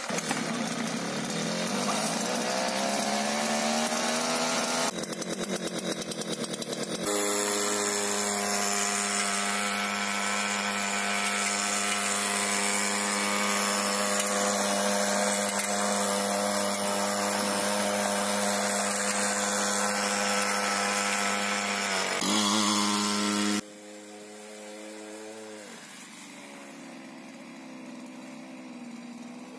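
Small brushcutter engine driving a homemade children's snowmobile, revving up at the start and then running steadily at high revs. Near the end it drops back to a lower, quieter idle, falling in pitch.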